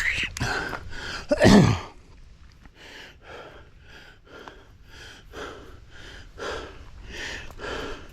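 A man panting hard from exertion while pedalling a mountain bike up a steep hill: two loud gasping breaths in the first two seconds, the second with a falling voiced exhale, then quick, regular breaths about two or three a second.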